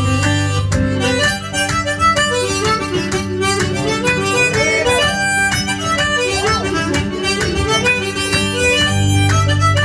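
One-man band playing live: a harmonica plays a quick run of melody notes over guitar, with a steady percussive beat. A low held bass note drops out about a second in and comes back near the end.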